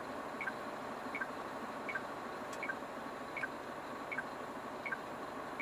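Truck's turn-signal indicator ticking evenly, a short two-tone blip about every three-quarters of a second, over the steady noise of the cab on the move.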